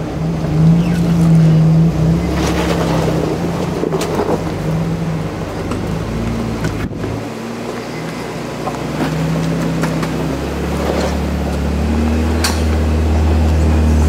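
A 2014 Jeep Wrangler Unlimited Rubicon's 3.6-litre V6 engine running under load as it crawls up a rock ledge, its revs rising and falling in steps. The note deepens and grows louder over the last few seconds as the Jeep pulls itself up. A few sharp knocks are heard along the way.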